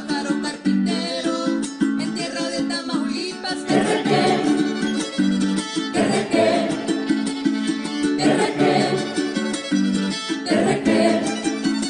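Instrumental huapango interlude: a violin plays melodic phrases over the steady rhythmic strumming of a small guitar.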